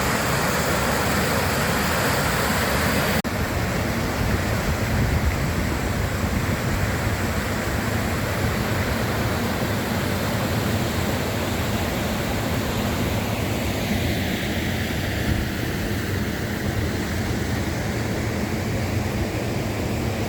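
River Calder floodwater rushing into the overflow basin: a loud, steady rush of water. About three seconds in, the sound changes abruptly and loses some of its hiss, then runs on steadily.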